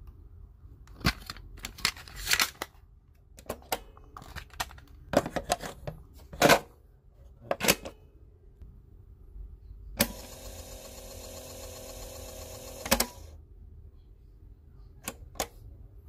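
A cassette tape's plastic case clicked open and the cassette taken out and snapped into a cassette player, a run of sharp plastic clicks and clatters. About ten seconds in, the player's motor whirs steadily for about three seconds as the tape rewinds, stopping with a click, and two more clicks of the deck's keys follow near the end.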